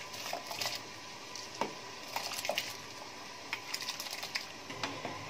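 Washed gobindobhog rice being poured from a steel bowl into a pot of hot dal water: scattered soft clicks and patters of grains dropping in, with the hand scraping them off the bowl.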